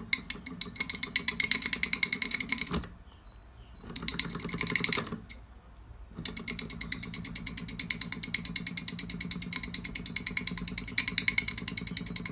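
Mamod TE1a model steam traction engine running, its single oscillating cylinder chuffing in a fast, even rhythm. The running falters twice, with a sharp click about three seconds in and a brief lull around five seconds, as the direction is swapped, then settles into a steady fast chuff.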